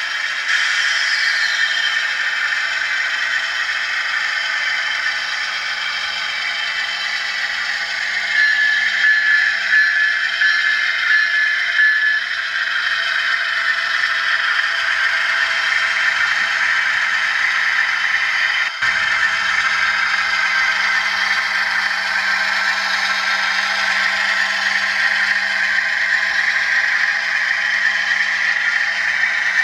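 HO-scale model train running on the layout track: a steady clatter and rattle of wheels on rail, with the Intermountain ES44AC's onboard sound decoder playing diesel engine sound through its small speaker. About eight seconds in, a high tone pulses on and off for about four seconds.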